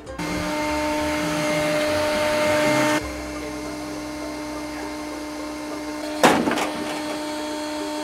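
Bee vacuum running with a steady motor whine, sucking bees from the hive. About three seconds in it turns to a lower hum with less hiss, and a short sharp bang stands out about six seconds in.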